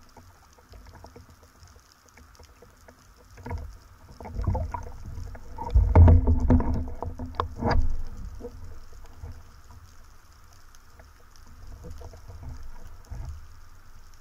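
Water sloshing and splashing around an underwater camera just below the sea surface, with irregular clicks and knocks from handling of the speargun and line. It is loudest and busiest between about three and eight seconds in, then settles to a low rumble.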